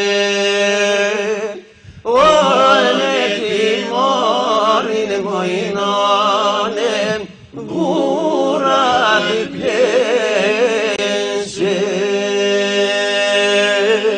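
A man singing a religious chant-style melody with no words, over a steady low drone: long held notes and rapidly ornamented, wavering runs, broken by two short pauses. A final long held note fades out at the very end.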